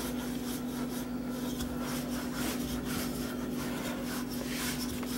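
Wooden rolling pin rolling back and forth over puff pastry dough on a floured wooden board, making repeated rubbing strokes. A steady low hum runs underneath.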